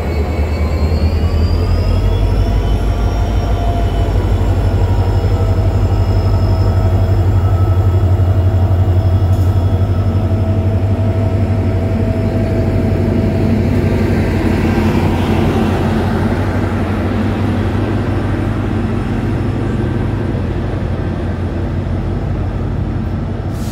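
WDP4D diesel-electric locomotive's 16-cylinder EMD two-stroke engine under power, pulling out past at close range, with a deep rumble and an engine note that rises over the first few seconds as it notches up. From about halfway the rolling rumble of the passenger coaches' wheels on the rails takes over as they pass.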